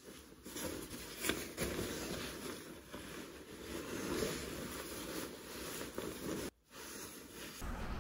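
Rustling of a padded coat with a shearling collar being swung on and pulled into place, irregular fabric swishes and soft knocks. Near the end it changes to a low outdoor rumble of wind on the microphone.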